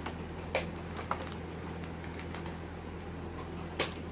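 A few sharp taps and clicks of small objects being handled, the loudest near the end, over a steady low hum.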